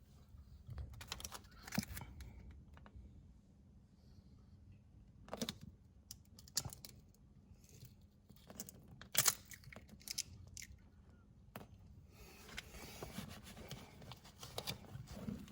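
Scattered light clicks and taps from handling peel-and-stick backsplash tiles, with a soft rustle of peeling or crinkling about twelve seconds in.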